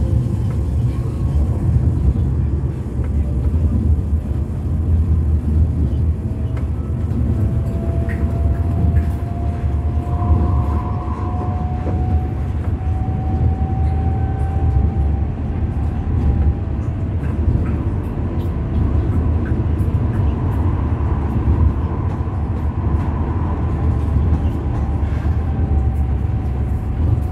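Inside a Tram 11 Express tram-train (Alstom Citadis Dualis) under way: a steady low rumble of the car running on the rails, with a thin motor whine that rises slowly in pitch over about the first sixteen seconds, fades, and comes back near the end.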